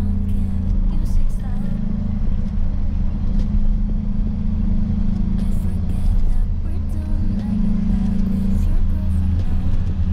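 Steady low drone of a car driving, engine and road noise heard from inside the cabin.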